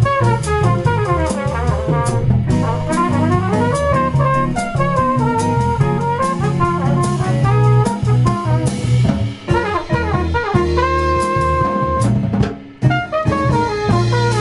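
Live jazz combo playing: a trumpet leads with quick rising and falling runs over electric bass, drums, piano and guitar, with two brief breaks in the band about two-thirds of the way through.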